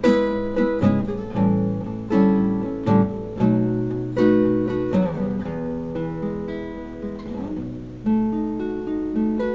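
Acoustic guitar played solo as a song intro, chords strummed and picked at an unhurried, even pace, each stroke left ringing into the next.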